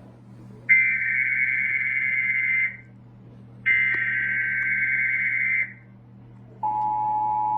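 Emergency Alert System header: two shrill, buzzing two-tone data bursts, each about two seconds long with about a second's gap between them. Near the end a steady electronic attention tone starts and holds, signalling that an alert message follows.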